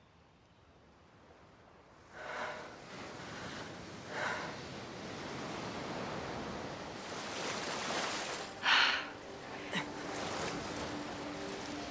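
Ocean surf washing onto a sandy beach, coming in about two seconds in and running steadily. Over it, a woman takes a few sharp breaths, about two, four and nine seconds in.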